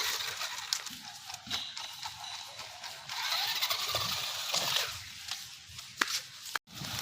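Toy remote-control monster truck driving, its small electric motor whirring amid scattered clicks. The sound breaks off for an instant near the end.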